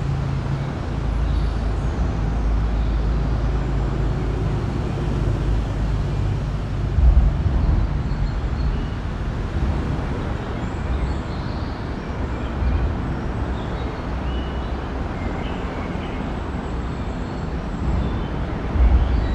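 Ring road traffic crossing a bridge, heard from beneath it: a continuous low rumble of tyres and engines. Two brief louder low thumps stand out, one about seven seconds in and one near the end.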